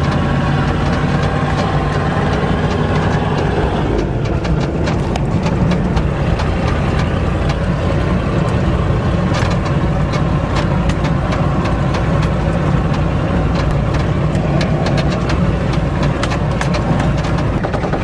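Ford diesel truck engine running with no exhaust system or muffler, heard from inside the cab while driving, with many clicks and rattles from about four seconds in.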